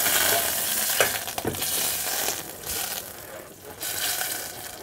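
Butter sizzling as it melts in a hot stainless-steel pot, with two sharp clicks of a knife against the pot about a second in. The pot has got rather too hot, so the sizzle is loud.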